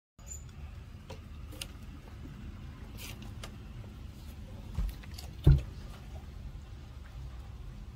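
Puppy eating steamed vegetables off a plate: scattered small clicks of chewing and of food and teeth against the plate, over a steady low rumble. A single low thump about five and a half seconds in is the loudest sound.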